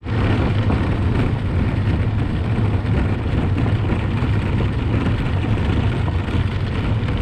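Steady, loud engine rumble of a motor vehicle running.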